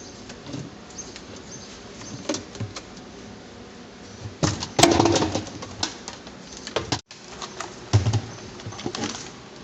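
Scattered clicks and knocks of washing machine parts being handled, with a louder burst of clattering about five seconds in and another knock about two thirds of the way through.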